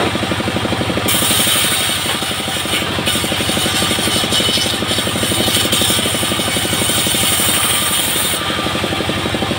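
Single-cylinder diesel engine of a bandsaw sawmill running steadily with a fast, even chugging. From about a second in until near the end a loud hissing rasp rides on top of it, the band saw blade cutting through coconut wood.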